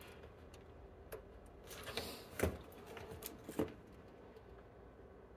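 A few sharp clicks and taps, the loudest about two and a half seconds in, with a short hiss just before it, from tools working on a circuit board being desoldered.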